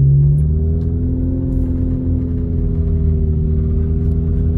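Car engine running steadily while driving, heard from inside the cabin, over the hum of tyres on a wet, slushy road. A strong low engine note drops away just after the start, and the pitch then holds nearly steady.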